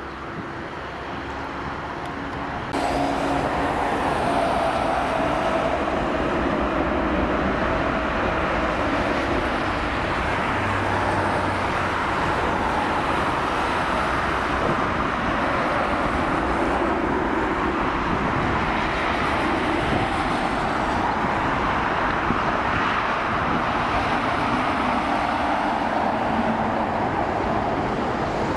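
Airbus A320-214's CFM56 jet engines at takeoff thrust during the takeoff roll: a loud, steady jet roar that jumps louder about three seconds in, with a faint whining tone that falls slightly in pitch soon after.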